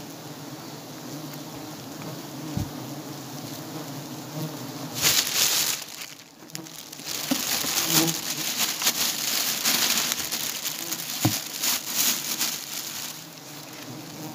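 A swarm of giant honeybees (Apis dorsata) buzzing steadily around their exposed comb. From about five seconds in, louder bursts of rustling noise come and go over the buzz.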